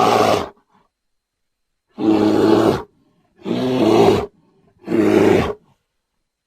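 Bear roars in short bursts under a second long, separated by silence: one ending about half a second in, then three more.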